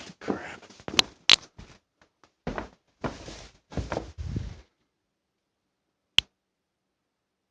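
Rustling and knocking of a hand-held phone being moved about, with two loud sharp clicks about a second in and a lone sharp click about six seconds in.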